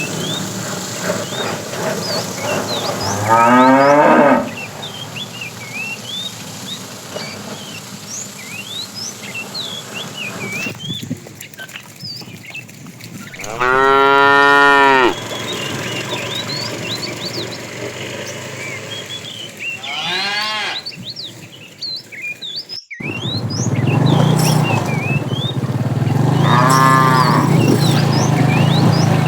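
Cattle mooing four times, the loudest a long moo about halfway through, with small birds chirping throughout and a steady low drone in the last few seconds.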